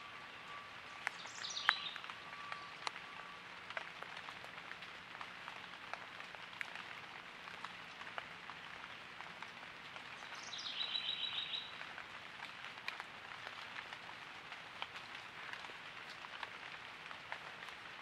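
Woodland ambience: a steady soft hiss with scattered light ticks, and a bird calling twice, once about a second in and again about ten seconds in. The second call is a falling note that breaks into a quick trill. A faint steady high tone runs through the first few seconds.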